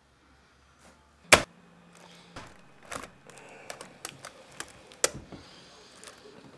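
Typing on an HP laptop keyboard: irregular key clicks, with one much louder sharp click about a second in and another near the end.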